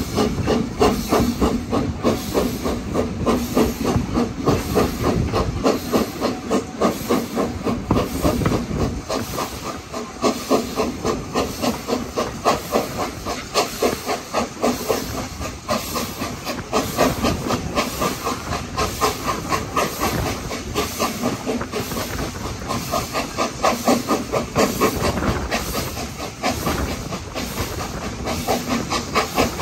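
BR Standard Class 4MT 4-6-0 No. 75078 working hard up a steep gradient, its two-cylinder exhaust beating in a steady, rapid rhythm over a hiss of steam, heard from a carriage window behind the engine.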